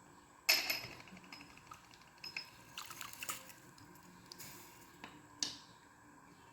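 A lemon being squeezed over a pan of water, its juice dripping and splashing in. There are several short squelchy sounds, the sharpest about half a second in and another near the end.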